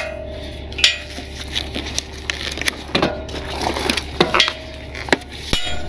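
Scattered metal clicks and clinks as a strap's hook is fastened around a chrome truck bumper to hang a tow light bar, with a short rattle near the end.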